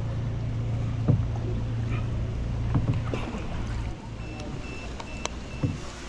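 Small outrigger paddle boat on calm water: a steady low motor hum that stops about four seconds in, with a few sharp knocks from the boat.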